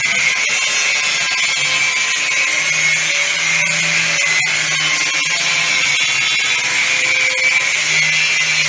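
Angle grinder with a cutting disc running steadily while cutting through metal, a continuous high, hissing grind with no pauses.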